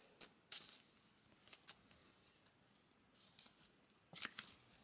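Faint rustles and small clicks of trading cards being handled and slipped into clear plastic sleeves. There are a few short crinkles in the first two seconds and a quick cluster near the end.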